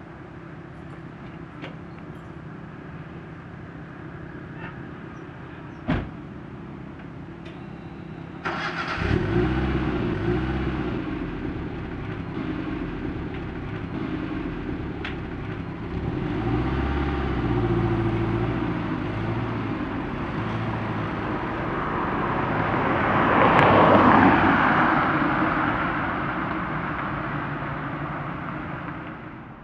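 Car engine and road noise: a steady hum with one sharp click about six seconds in, then the engine grows louder about nine seconds in. A broad rushing sound swells to its loudest a little before the end and then dies away.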